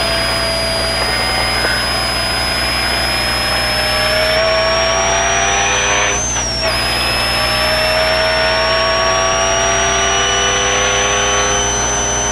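Mitsubishi Pajero rally car's engine and tyre-and-body noise heard from inside the cabin, running steadily under load over rough desert ground. The engine pitch climbs slowly, dips briefly about halfway through, then holds, with a high whine rising and falling along with it.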